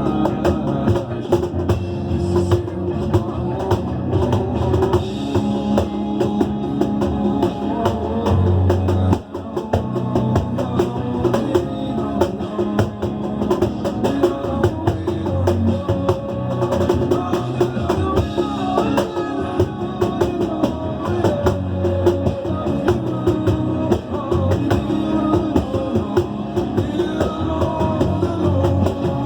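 Batucada: a Brazilian samba percussion ensemble drumming in a dense, steady rhythm, with a brief break about nine seconds in.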